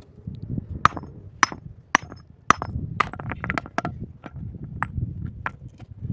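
A series of sharp knocks about two a second, then a quicker run of lighter clinks around three seconds in, over a low rustle of handling.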